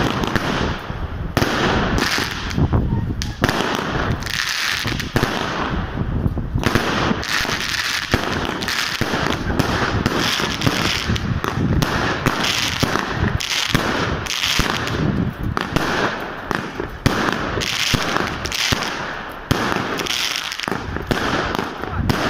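Fireworks going off: a fast, unbroken series of bangs and crackles as aerial shells launch and burst overhead.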